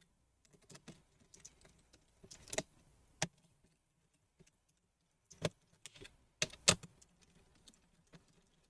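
Faint, scattered clicks and taps of a laptop's metal heatsink-and-fan assembly being handled by hand, loosened and lifted off the motherboard. A few sharper knocks come a little past the middle.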